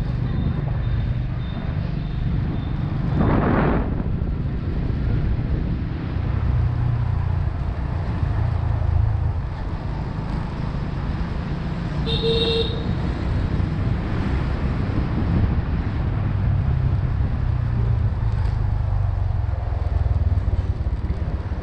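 Motorbike engine running with wind and road noise, heard from the rider's seat as the bike rides through town streets. A short horn beep sounds about twelve seconds in.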